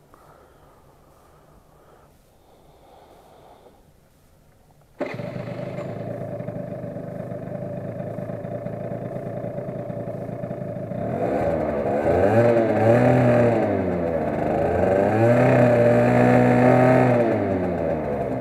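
Aprilia SR50R scooter's 50cc two-stroke engine starting abruptly about five seconds in and idling. Near the end it is revved twice, its pitch rising and falling each time, then it drops back to idle.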